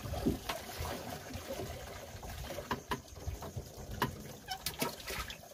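Light trickling and splashing of water around a small wooden outrigger boat, with scattered small clicks and knocks.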